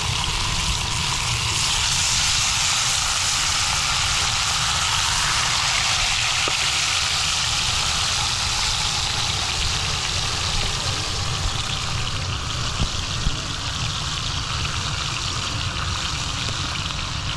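Chicken pieces frying in hot oil in a skillet over a wood fire: a steady sizzle, with a couple of light clicks about two-thirds of the way through.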